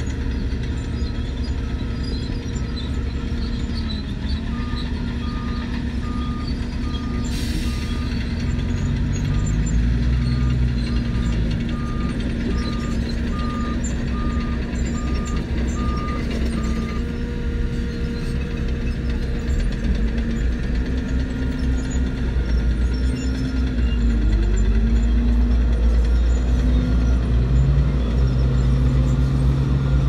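Diesel engines of heavy earthmoving machines running and revving up and down, with a reversing alarm beeping about one and a half times a second for a stretch in the first half. The engine sound grows louder about a third of the way in and again near the end.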